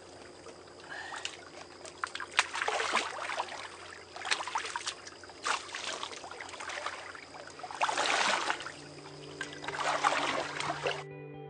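Shallow water splashing and sloshing in several bursts as a common carp is let go by hand at the water's edge and hands move through the water. Guitar music fades in near the end.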